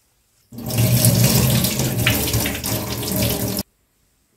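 Tap water running into a glass bowl of rice in a steel sink while the rice is rinsed, starting about half a second in and cutting off abruptly about three seconds later.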